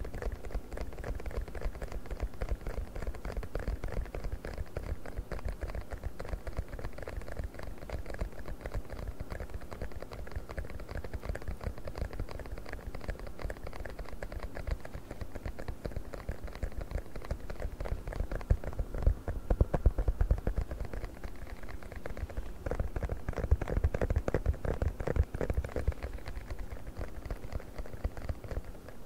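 Fingers tapping fast on a silicone funnel: a dense, continuous run of soft, muffled taps, louder in two stretches in the second half.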